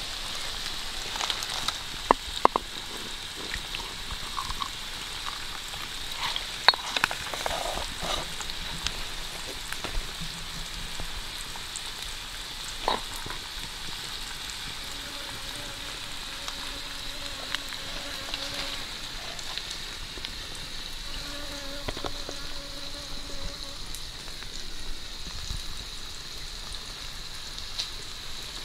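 Stone pestle crushing and pounding red chillies in a stone mortar, with irregular knocks and wet crunching, over a steady high-pitched drone of forest insects.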